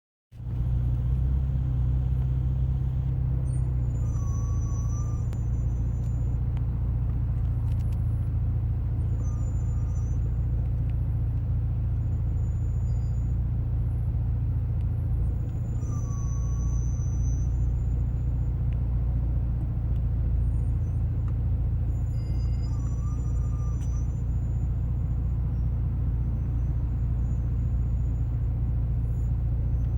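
Car running with a steady low rumble, with four high-pitched squeals about six seconds apart, each around a second long. The squeals come from Hawk HP+ performance brake pads, a very bad squeak for daily driving.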